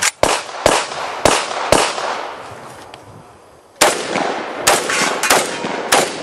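Saiga 12 semi-automatic 12-gauge shotgun firing rapid strings of shots, about two a second. There is a pause of about two seconds in the middle, then firing resumes.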